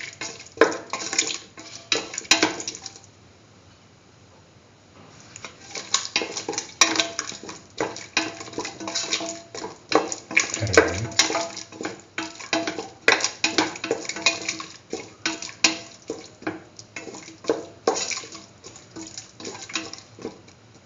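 A cooking utensil stirring and scraping a wet chicken-and-potato mixture in a pan, with repeated clattering strokes against the pan. There is a short pause of about two seconds a few seconds in.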